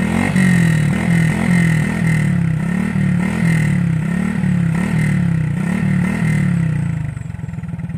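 Single-cylinder four-stroke Honda 125 underbone engine, stock but fitted with an SWR 28mm flat-slide carburetor, blipped repeatedly through its chrome aftermarket muffler, the revs rising and falling about every three-quarters of a second, then settling to idle near the end.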